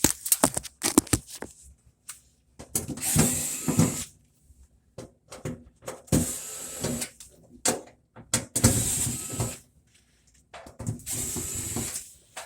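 Power drill run in four short bursts of about a second each, with sharp clicks and knocks between them: a panel's screws being driven out to get at the back of the washer.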